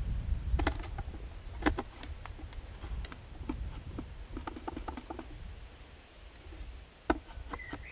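Handsaw cutting through a small piece of wood held on a shaving horse: irregular short rasping clicks and ticks from the saw strokes, bunched together in the middle, over a low rumble.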